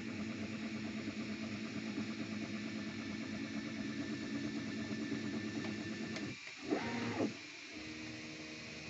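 Anet A6 3D printer running a print: its stepper motors hum in steady tones over fan noise. About six seconds in the hum breaks off briefly for a short rising-and-falling whine, then settles into a steady hum at a higher pitch.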